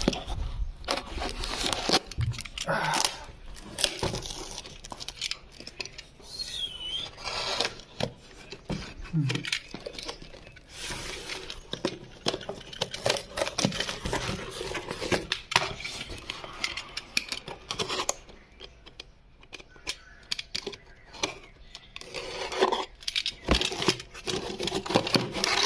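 Utility knife blade slicing and scraping through plastic packing tape on a cardboard parcel, with tape ripping and cardboard flaps being scraped and pulled open in irregular clicks and rasps.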